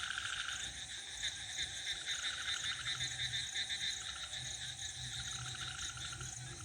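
Night chorus of frogs and crickets: dense, overlapping pulsed trills with a steady high chirring, and a lower pulsing croak joining about halfway through.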